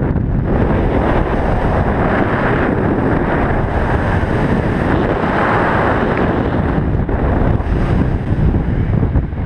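Strong, steady wind noise buffeting the camera's microphone, from the rushing airflow of a speed wing in fast flight.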